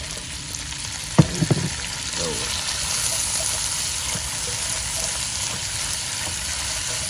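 Squid rings, carrots and long beans sizzling as they are stir-fried in oil in a wok, stirred with a spatula; the sizzle gets louder about two seconds in, after the beans go in. A brief sharp sound about a second in.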